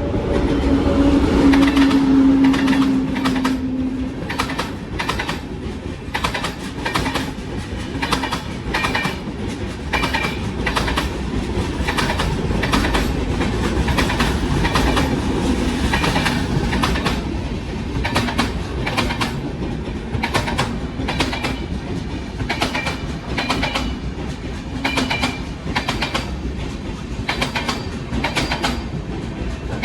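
Train passing at high speed, its wheels clicking over the rail joints in a continuous clickety-clack. A steady pitched tone sounds over the first few seconds as the front of the train goes by.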